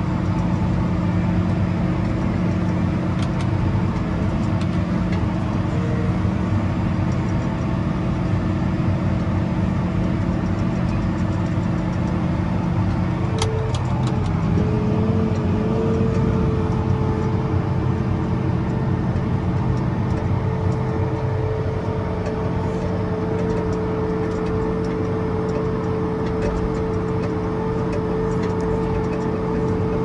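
A tractor's engine running steadily, heard from inside its cab as a constant drone. There is a brief click about 13 seconds in, and the engine note shifts slightly a couple of seconds later.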